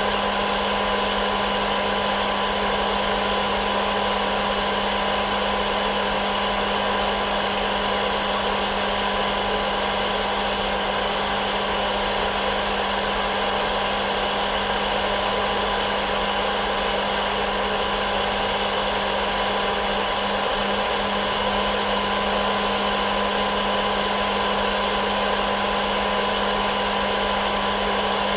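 Hair dryer running steadily: a constant rushing blow of air with a steady motor hum underneath, unchanging throughout.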